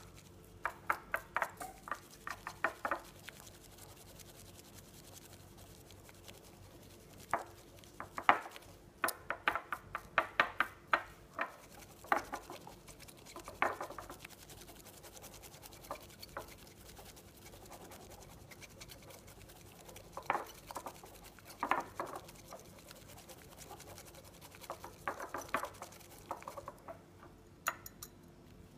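Bamboo matcha whisk (chasen) beating matcha back and forth in a ceramic bowl, whipping it to a froth. It comes in bursts of rapid scratchy swishing and tapping against the bowl, with quieter spells in between.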